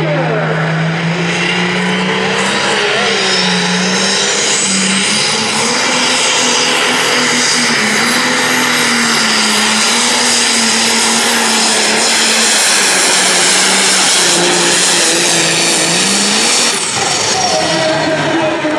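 Light-limited pro stock pulling tractor's diesel engine running hard under load as it drags the weight sled, with a high whine that rises over the first few seconds. The engine drops off suddenly about seventeen seconds in.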